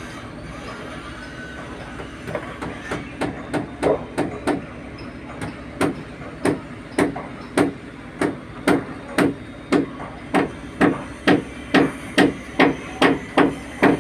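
Hammering, about two blows a second, starting about two seconds in, at first unevenly and then in a steady rhythm, each blow with a short ring. The hammering is heard over a steady low hum.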